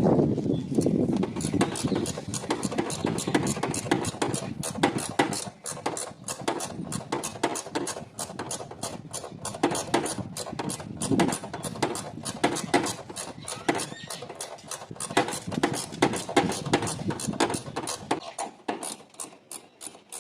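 Ratchet wrench clicking in quick, uneven runs as bolts on the Acura TL's motor mount bracket are loosened.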